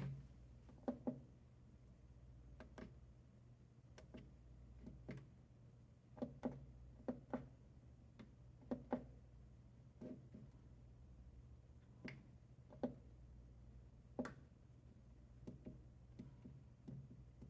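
Power button of a Coofly S1000 portable power station being pressed and released again and again, sharp clicks that often come in quick pairs, spaced irregularly, over a steady low hum; the unit will not stay on.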